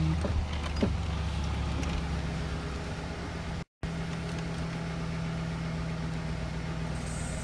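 Pickup truck engine idling steadily, heard from inside the cab, with a split-second dropout a little before four seconds in.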